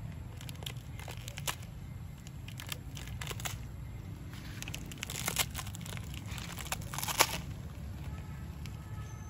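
Plastic instant-noodle packet crinkling and crackling in a macaque's hands as it tugs and bites at the wrapper. The crackles are irregular throughout and densest and loudest from about five to seven seconds in.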